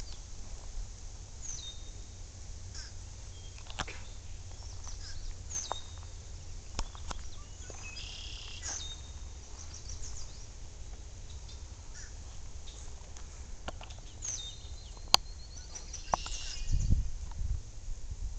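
Fish crow giving short "anh" calls over and over, with higher chirps of other small birds in between.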